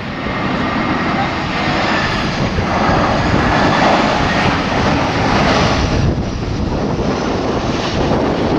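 Engines of an Airbus A320-200 airliner on landing approach, a steady jet rush that grows louder over the first few seconds and stays loud as the plane passes.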